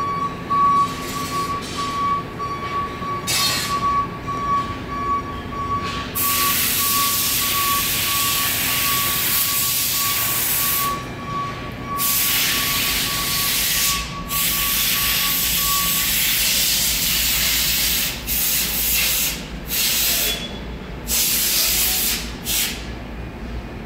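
Factory machinery at an induction heating station: repeated long bursts of loud hissing over a steady low hum, with a thin high pulsing tone that stops about two-thirds of the way through.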